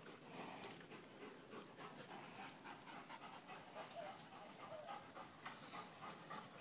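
Weimaraner panting faintly, an even run of quick breaths.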